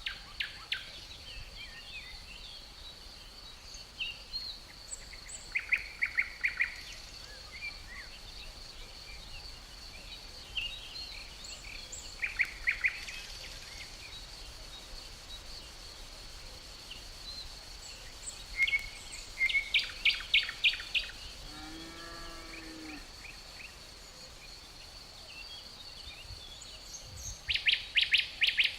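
Birds chirping in short rapid trills, four or five bursts spread through, over a steady high insect drone. A short low animal call sounds about three-quarters of the way in.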